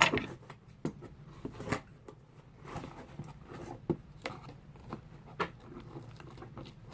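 A package box being cut open carefully by hand: scattered, irregular snips, clicks and scrapes of the blade on the box, with quiet gaps between them.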